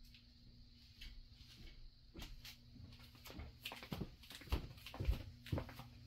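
Footsteps and handling knocks as someone walks across a basement floor holding the camera: irregular thumps and clicks, denser and louder in the second half, over a steady low electrical hum.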